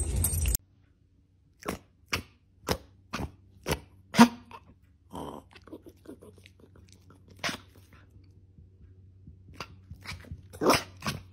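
A Jack Russell terrier puppy chewing, making a string of crisp crunching clicks about two a second that then thin out. A louder cluster of sounds comes near the end.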